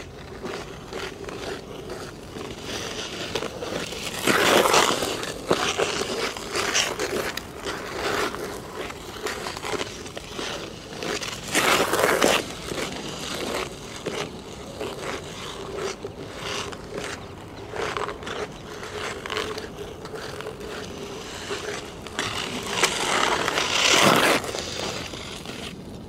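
Ice skate blades scraping and gliding over hard natural black ice, recorded close to the ice surface: a string of skate strokes, with louder passes about four seconds in, near the middle and near the end.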